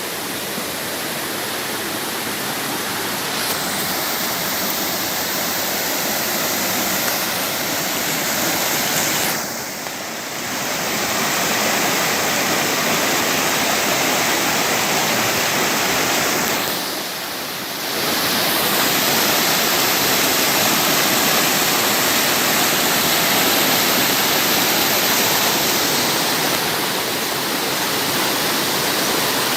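Steady rushing and babbling of a small stream flowing over rocks, a constant noise that briefly dips twice, about a third and about two-thirds of the way through.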